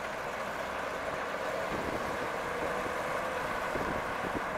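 A 1980 Buick Riviera driving slowly past on pavement: a steady mix of engine and tyre noise with no sharp events.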